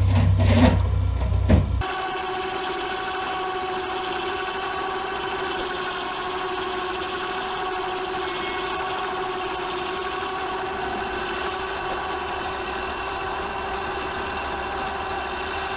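Electric winch motor running with a steady whine for over ten seconds, hauling a motorcycle up the ramp into a kei truck's bed. In the first couple of seconds there is a low rumble and a voice.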